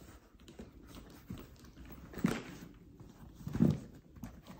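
Handling noise from a calfskin leather duffle bag being lifted and shifted on its cloth dust bag: soft rustling and rubbing, with two short louder sounds about two seconds in and again near three and a half seconds.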